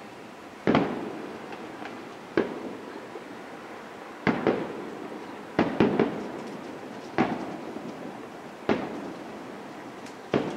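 Aerial firework shells bursting: about ten sharp bangs at uneven intervals, several in quick pairs, each followed by a rolling echo.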